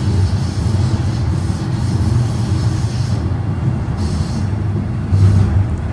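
Toronto Rocket subway train on TTC Line 1 running through the tunnel, heard from inside the car: a steady low rumble of wheels on rail, with a higher hiss that drops away about three seconds in.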